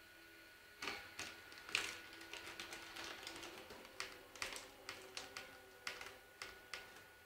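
Cats pawing and tugging at a bag and toys on a wooden floor: a quick, irregular run of taps and rustles that starts about a second in and stops near the end.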